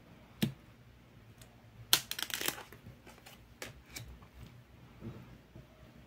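Tarot-size cardstock cards handled on a wooden table. There is one sharp tap about half a second in, then a quick run of papery clicks and slides around two seconds in as the top card is taken off the deck, and a few lighter taps after.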